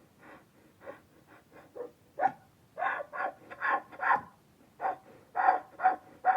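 Donkey braying: a run of short, rapid calls. They are soft for the first two seconds and grow louder and closer together after about two seconds.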